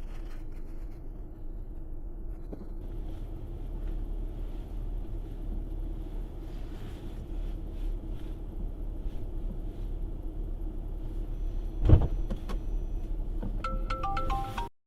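Steady low rumble of a car driving, with one sharp loud thump about twelve seconds in, then a quick run of short beeps before the sound cuts off abruptly.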